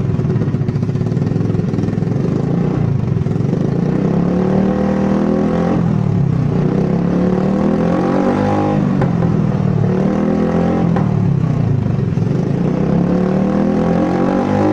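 Honda Beat automatic scooter's stock single-cylinder engine breathing through an aftermarket stainless racing exhaust: idling steadily at first, then revved with the throttle several times, the exhaust note rising and falling with each blip.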